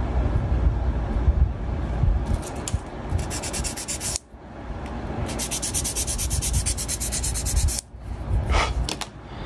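Sanding stick scrubbed back and forth on a small plastic model part in quick, even strokes, about seven a second. The sanding comes in two runs, with a brief pause about four seconds in, and stops near eight seconds. It is smoothing down a seam on the part.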